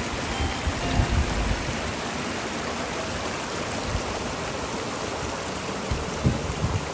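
Steady hiss of water, with a few low rumbles about a second in and near the end.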